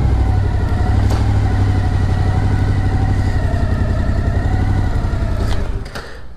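Suzuki V-Strom motorcycle engine running steadily at low revs while the bike is ridden slowly into a parking spot. It stops near the end, followed by a sharp click.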